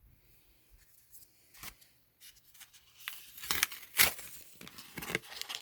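Foil Pokémon card booster pack being torn open and crinkled: a few faint clicks, then sharp, crackling tearing from about three seconds in.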